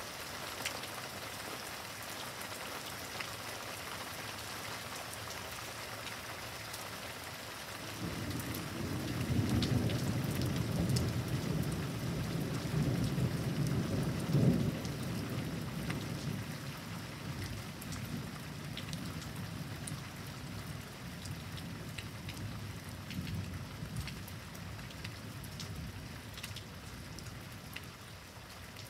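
Steady rain from a severe thunderstorm, with scattered drops ticking. About eight seconds in, a long roll of thunder begins. It swells to its loudest some six seconds later and fades out over the following several seconds.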